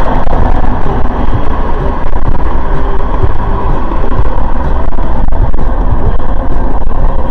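Steady road and engine noise of a moving vehicle, picked up inside the cabin by a dashcam's microphone.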